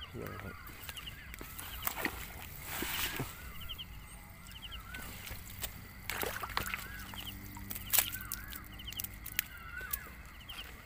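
Frogs calling repeatedly, a short wavering note about once a second with quick rattles of ticks between calls, mixed with the rustling and snapping of dry leaves and stems as someone pushes through undergrowth.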